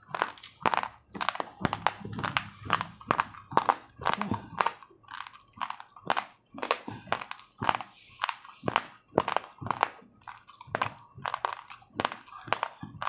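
Raw uncooked rice grains being chewed close to the microphone: a steady run of sharp, dry crunches, two or three a second.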